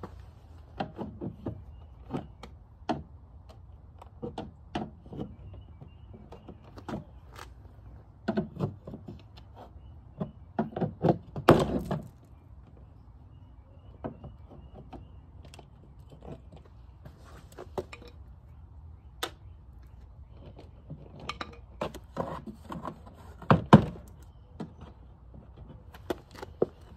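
Plastic retaining clips of a Honda Accord's interior door panel being pried loose with a flathead screwdriver. The panel and tool make a string of sharp clicks, snaps and knocks in two busier spells, with the loudest pops about halfway through and near the end.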